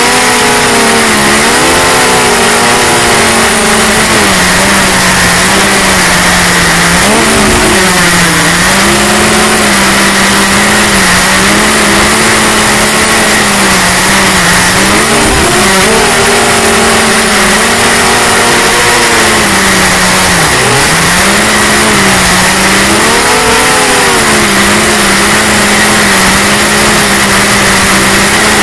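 Motor and propeller of a small radio-controlled aircraft heard from its own onboard camera: a loud, steady buzz whose pitch rises and dips every few seconds as the throttle changes, over constant wind rush and hiss.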